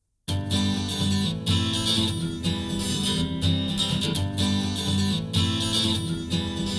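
Acoustic guitar music starting up after a brief silence: the instrumental opening of an acoustic song, before the vocals come in.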